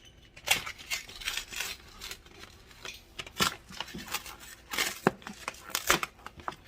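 Packaging of stainless steel dehydrator mesh screens being torn open and handled: irregular rustling with a few sharp, louder crackles.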